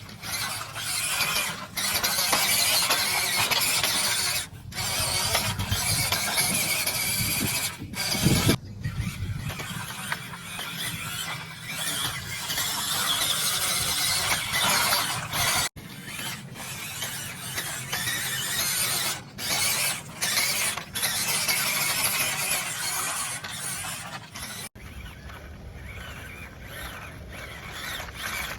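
Small electric motor and geared drivetrain of a WPL C24 1/16-scale RC Toyota Hilux crawler whining as it drives. The sound breaks off and resumes several times with the throttle.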